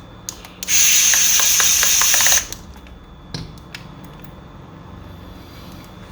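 A burst of spray-like hiss lasting under two seconds, like an aerosol or compressed-air spray, followed by a couple of sharp clicks from small parts being handled.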